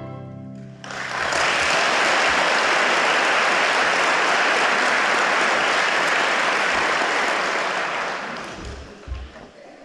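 The last chord of a string orchestra dies away in the hall. Audience applause starts about a second in, holds steady, then fades out near the end.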